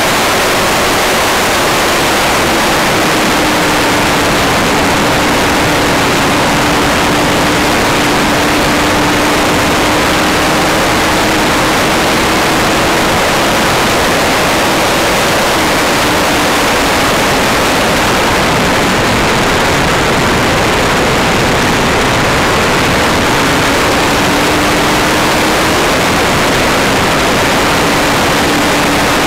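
Heavy wind noise on the microphone of a Yamaha YZF-R1 motorcycle being ridden at speed, with the bike's inline-four engine note faint and steady beneath it, fading out for several seconds midway.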